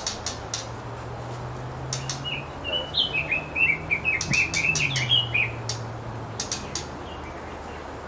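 A bird chirping: a quick run of about a dozen short, high notes in the middle, with sharp ticks scattered before and after and a faint low hum underneath.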